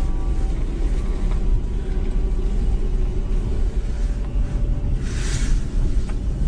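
Car driving slowly, with a steady low rumble of engine and road noise and a brief hiss about five seconds in.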